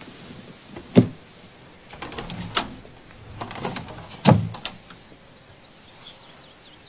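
Cardboard package being handled and set down against a door: a few sharp thuds and knocks, the first the loudest, with cardboard and paper rustling between them.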